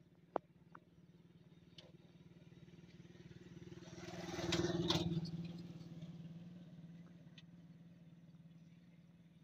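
A motor rickshaw driving past close by, its engine growing louder to a peak about halfway through, then fading as it moves away down the road. A single sharp click just after the start.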